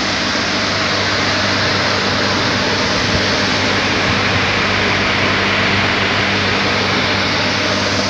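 Industrial boiler plant running: a loud, steady rushing noise from the boiler's burner and blower, with a steady low hum underneath.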